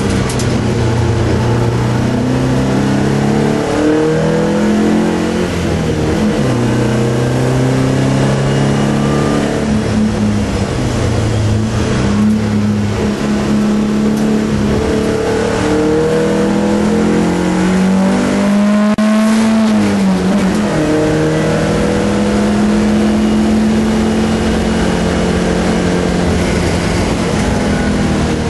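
BMW 318 E21's four-cylinder engine under hard track driving, heard from inside the cabin: it revs up through each gear, drops in pitch at every shift, and dips briefly then climbs again about two-thirds of the way through.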